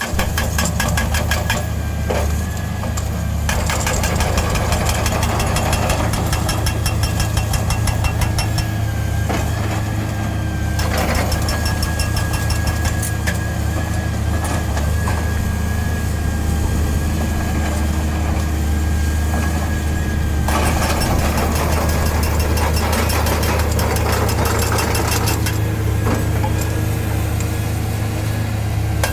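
Montabert V4500 hydraulic breaker on a Hitachi 470 excavator hammering in rapid, evenly spaced blows, in long runs broken by a few short pauses, over the steady drone of the excavator's diesel engine.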